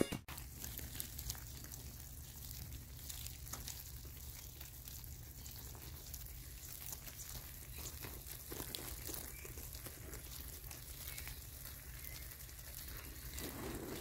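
Faint outdoor background: a steady low hum and soft hiss with scattered light crackles and ticks.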